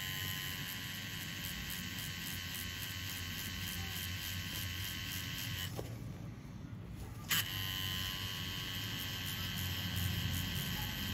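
Pen-style tattoo machine with a cartridge needle running with a steady high-pitched buzz while inking red colour into skin. It stops about six seconds in, then switches back on with a click about a second and a half later and runs on.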